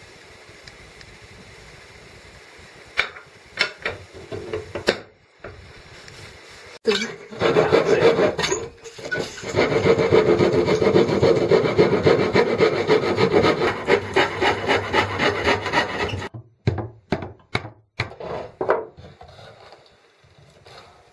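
A saw cutting through wood in a continuous run of quick strokes lasting several seconds, with scattered knocks and scrapes of wood being handled before and after.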